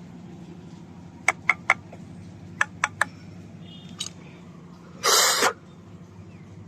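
Sharp clicks and knocks from debris being handled and pulled out of a jammed water line, over a steady low hum. About five seconds in there is a brief, loud burst of rushing noise.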